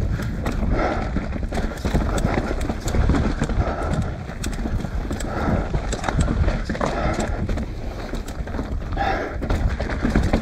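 Mountain bike riding down a rocky dirt trail: tyres crunching over dirt and stones, with rapid knocks and rattles from the chain and frame as it bumps over rocks and roots, over a steady low wind rumble on the microphone.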